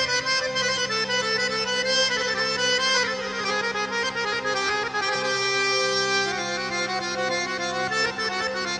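Background music: an instrumental tune with held chords and a melody, playing at a steady level.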